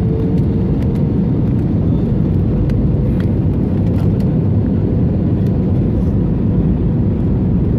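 Steady roar of an airliner's engines and rushing air heard inside the passenger cabin during descent, deep and even, with a faint steady hum above it.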